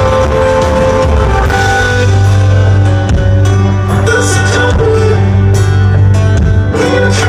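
Live rock band playing loudly between sung lines: guitars and sustained keyboard or vocal tones over a heavy bass, with drum hits near the end.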